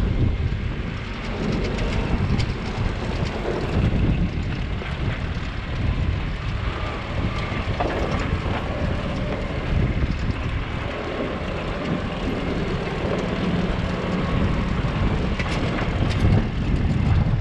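Heavy farm machinery running: a steady, low engine rumble with a faint hum.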